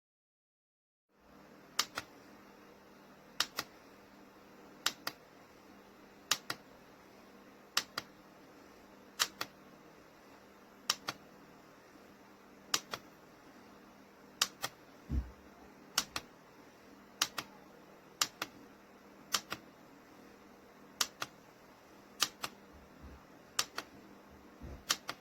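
Sound machine playing a track of paired sharp clicks, a pair about every one and a half seconds, over a faint steady hiss. There is one low thump about fifteen seconds in.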